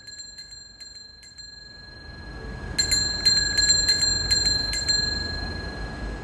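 Bell-like metallic pings, each ringing briefly, about two or three a second: a few faint ones at first, then a louder run starting about three seconds in over a rising hiss.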